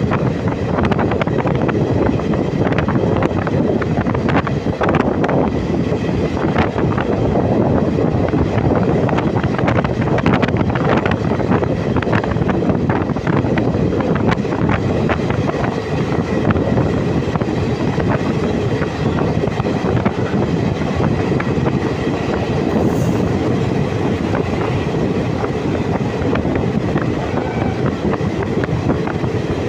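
Passenger train running on rails, a loud steady noise with the irregular clatter of wheels over rail joints throughout.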